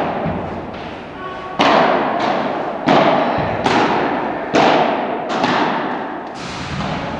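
Padel rally: the ball struck by padel rackets and bouncing on the court, about six sharp knocks roughly a second apart. Each knock rings on in the echo of the large hall.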